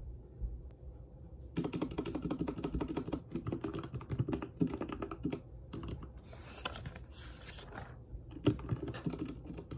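Fast typing on a mechanical keyboard, a rapid run of key clicks starting about a second and a half in, a pause of a couple of seconds, then more keystrokes near the end.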